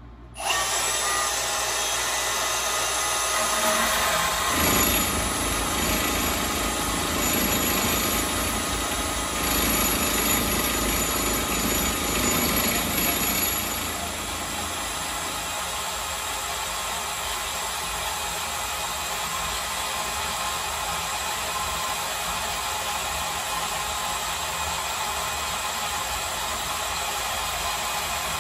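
Milwaukee M18 Fuel cordless deep-cut band saw starting up about half a second in and cutting through aluminum bar stock held in a vise, at speed setting 3. For roughly the first ten seconds of the cut the sound is louder and rougher: the saw is pitched up too high and the work is vibrating in the vise. From about 14 seconds in it settles to a steadier, smoother cut once the saw is levelled out.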